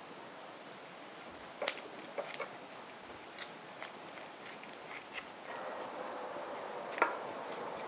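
Scattered light clicks and taps as a spoon and small knife hollow out tomatoes, with the metal now and then knocking on the wooden cutting board. A faint steady hum comes in about two-thirds of the way through.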